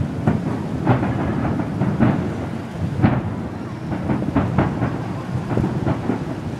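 Aerial fireworks going off: a quick, irregular string of bangs and crackles over a continuous low rumble.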